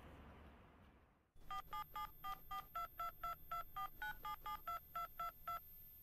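Telephone keypad tones: a quick, even run of about seventeen short two-tone beeps, roughly four a second, with the pitch pair changing from key to key. They start about a second and a half in and stop shortly before the end.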